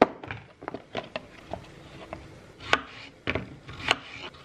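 Sharp clicks and light taps as a plastic clip-lid food container is handled, then a knife cutting cucumber on a plastic chopping mat, with three louder knocks about half a second apart in the second half.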